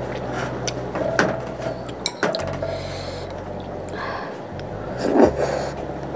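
Eating at a noodle bowl: chewing, with small clicks of chopsticks and a spoon against the ceramic bowl, and a louder breathy mouth noise at the noodles about five seconds in.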